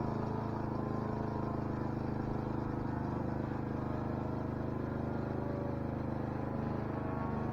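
Saito four-stroke model aircraft engine of an RC plane in flight, running steadily with an even drone; its pitch wavers slightly near the end.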